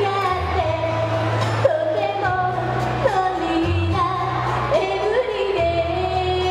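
A woman singing a song into a microphone over backing music, with held notes and short upward slides between them, over a steady bass line.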